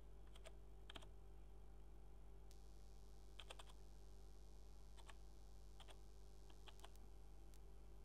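Faint computer keyboard keystrokes, single key presses at an uneven pace with a short flurry of two or three about three and a half seconds in, as digits are typed in one by one. A steady low electrical hum lies underneath.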